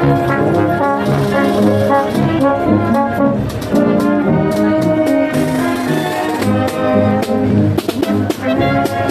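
Brass band playing a tune in a street procession, loud, with some sharp hits cutting through.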